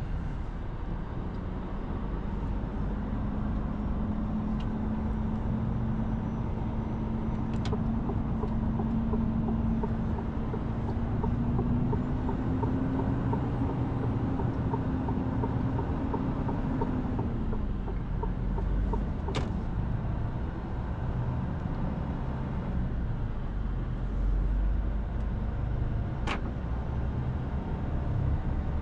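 Mercedes-Benz Actros L 1848's straight-six diesel heard from inside the cab while driving, a steady low drone whose engine note rises slowly and then drops about two-thirds of the way through, as at a gear change. A few single sharp clicks sound from the cab along the way.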